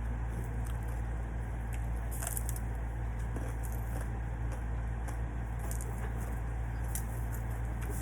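Someone eating, chewing with scattered faint crunches and clicks over a steady low hum.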